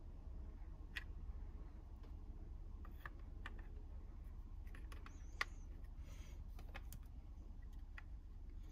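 Faint, scattered clicks and taps of hard plastic parts being handled: the steering-column combination switch and clock-spring housing being turned and fitted by hand, with the sharpest click about five and a half seconds in. A low steady hum lies underneath.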